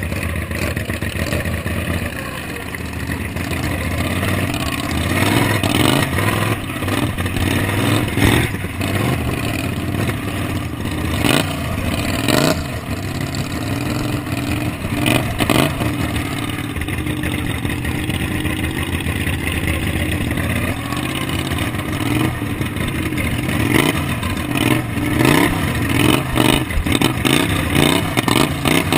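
Racing lawn mower's Briggs & Stratton Vanguard engine running hard, its pitch rising and falling as the driver accelerates and backs off for the turns, with knocks and rattles from the mower bouncing over the rough track.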